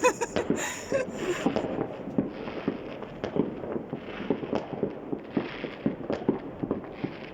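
Many fireworks going off at once: a steady run of overlapping bangs and crackles, several a second.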